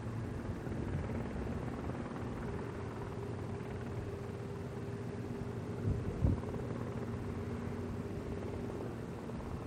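Radial piston engines of taxiing Douglas DC-3 airliners, a steady low drone with a faint steady hum, and a brief thump about six seconds in.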